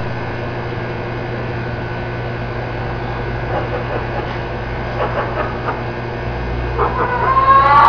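Steady machine hum with several steady tones running underneath, with a few faint knocks in the middle and a few short pitched calls coming in near the end.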